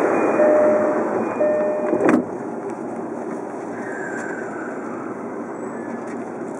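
Electric commuter train heard from inside the carriage: steady running noise with a repeated tone over the first two seconds, then a sharp knock about two seconds in, after which the noise settles lower and steady.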